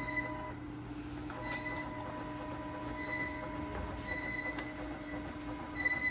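Epson L1800 inkjet printer running a print-head cleaning cycle: a steady motor whine with a higher tone that drops out and returns, and short high-pitched whistles coming and going as the cleaning mechanism runs.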